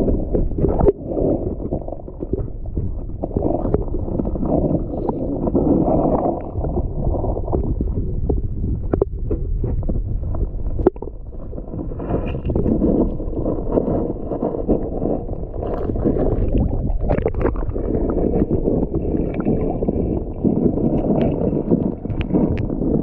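Muffled underwater noise picked up by a submerged camera: a low rumbling churn of water stirred by hands and a released largemouth bass. A few sharp clicks and knocks of handling break through it, the loudest about a second in and near eleven seconds.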